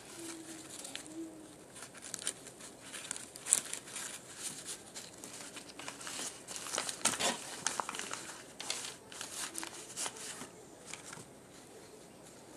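Paper towels and a crumpled paper squishy being handled and stuffed, giving irregular paper crinkles and rustles.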